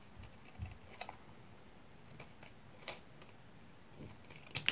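Small craft scissors snipping through card stock as a small picture is trimmed out: a handful of short, crisp snips spread out irregularly, the sharpest near the end, with a soft low thump about half a second in.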